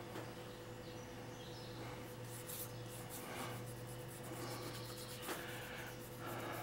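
Faint soft scratching of a fine paintbrush dabbing and working oil paint over a small model coach side, in short irregular strokes. A low steady hum sits underneath.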